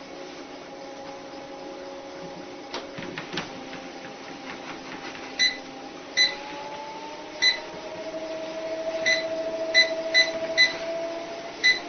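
Electric treadmill running with a steady motor whine. Its control panel beeps eight short times from about five seconds in while the whine climbs in pitch, the belt speeding up. Three light knocks come around three seconds in.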